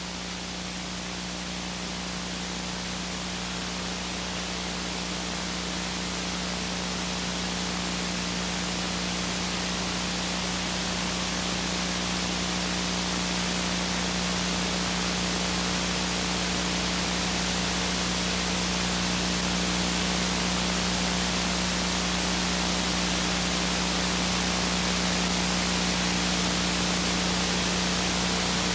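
Steady hiss with a low electrical hum underneath: the noise of blank videotape playing on after the programme has ended. It grows slowly louder.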